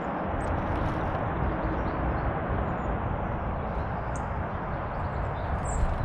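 Steady outdoor background rumble with a few faint, short, high bird chirps scattered through it, and a brief knock at the very end.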